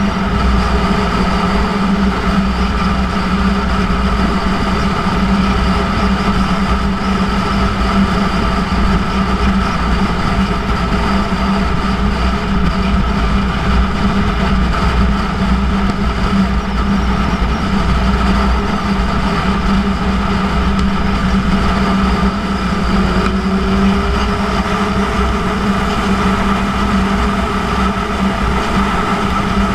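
2006 Yamaha YZF-R1's inline-four engine with its Yoshimura titanium exhaust, ridden at a steady cruise, with wind rushing past the bike.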